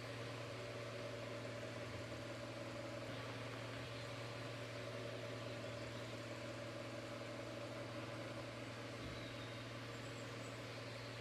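Electric fan running: a steady motor hum under an even airy hiss.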